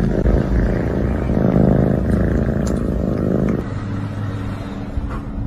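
A cat purring loudly close to the microphone, a fast low rumbling pulse; about three and a half seconds in it gives way to a steadier low hum.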